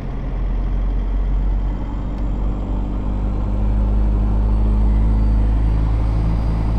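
Isuzu 4JJ1 four-cylinder turbo-diesel, swapped into a Nissan Patrol, pulling under acceleration as heard from inside the cab, its turbo noise part of the sound. The engine note builds over the first few seconds, then holds steady.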